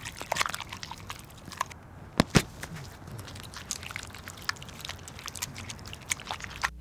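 A run of irregular sharp clicks and crackles, a few much louder than the rest, over a quiet background haze.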